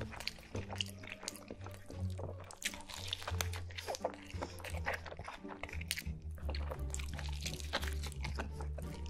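Background music with a steady bass line, over wet squelching and crackling as a sauce-soaked burger is squeezed and crushed by hand.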